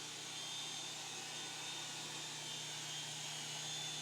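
Small remote-control helicopter in flight, its motor and rotors whirring steadily with a thin high whine over a low hum.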